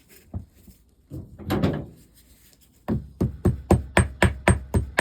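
Hammer tapping on a two-stroke trials engine's cylinder head in a quick series of sharp metallic knocks, about four a second, starting about three seconds in, after a single knock near the start. The taps are breaking the head loose from a stuck gasket.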